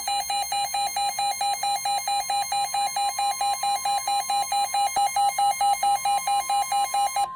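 Weather radio sounding a severe thunderstorm warning alert: rapid electronic beeping, about four to five beeps a second, over a steady single warning tone near 1 kHz, the NOAA Weather Radio 1050 Hz alarm. The beeping stops near the end while the steady tone carries on.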